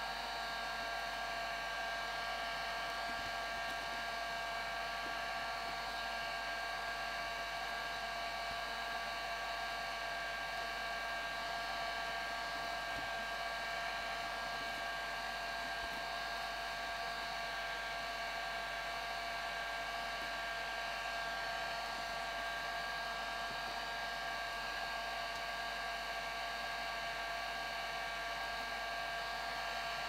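Electric heat gun running steadily: its fan blows with an even rush of air and a steady whine of several pitched tones. It is heating foam so the pieces fuse together without glue.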